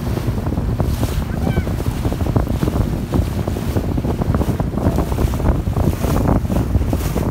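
Heavy wind buffeting the microphone on a moving motorboat, over the rush of water past the hull.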